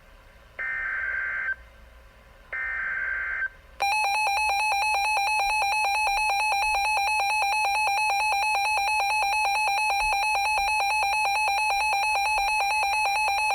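Emergency Alert System header: two short buzzy bursts of SAME digital data about a second apart, then the EAS two-tone attention signal (853 and 960 Hz) sounding steadily at full loudness, announcing a Flash Flood Warning.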